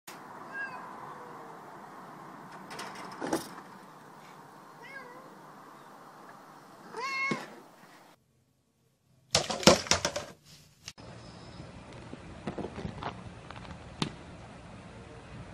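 Domestic cat meowing: a few faint short mews, then one louder meow about seven seconds in. About two seconds later comes a loud burst of sharp knocks and clicks, followed by a few lighter clicks.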